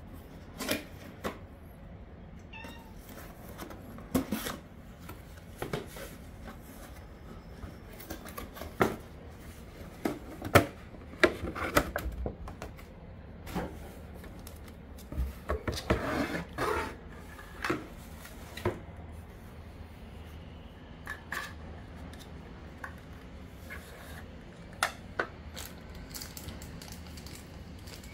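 A cat meowing now and then over handling noise: sharp taps, clicks and rustles of a cardboard box being opened and a plastic toy being set out.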